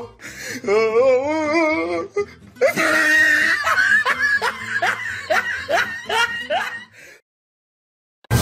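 A person laughing, first a wavering giggle, then a run of short rising "ha" bursts about two or three a second, which cut off suddenly about seven seconds in.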